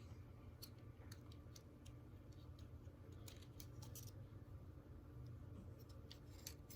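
Faint, scattered light clicks from small parts being handled, roughly one or two a second, over a low steady hum.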